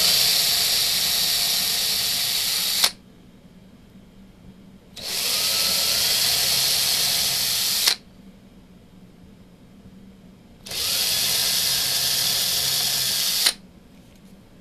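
Electric drill with a 3/32-inch bit boring pilot holes into a fiberboard base: three runs of about three seconds each with pauses between, each cutting off abruptly.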